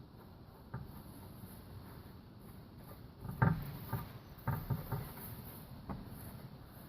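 Several short knocks and clicks from tools and engine parts being handled during engine assembly. One comes about a second in, then a cluster halfway through with the loudest knock near its start, and a last click near the end.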